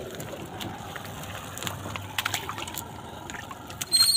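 Shallow muddy water sloshing and trickling, with scattered small clicks. A high, thin, steady tone sets in near the end.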